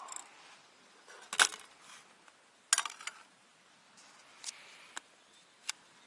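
Scattered sharp clicks and clacks of camp cooking gear being handled around a frying pan on a gas burner: one loud click, a quick run of clacks a little later, then a few lighter ticks.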